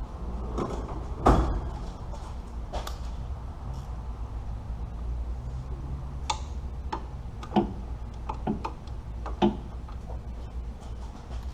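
Hand tools clicking and knocking against metal parts while the alternator is being unbolted, with scattered sharp clicks, the loudest about a second in, over a low steady hum.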